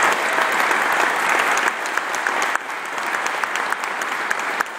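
Audience applauding: dense clapping that eases off a little about halfway through.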